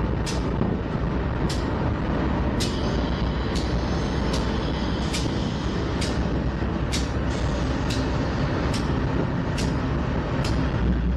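Diesel-electric freight locomotives rolling slowly past, their engines giving a steady low rumble, with sharp metallic clicks about once a second from the wheels on the track. A higher hiss of air comes in for a few seconds near the middle.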